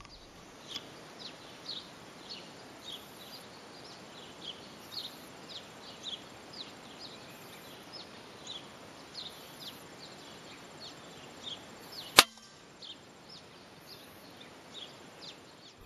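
A single shot from an Edgun Matador PCP air rifle about twelve seconds in: one sharp crack, by far the loudest sound. Behind it, over steady background noise, small birds give short, falling chirps again and again.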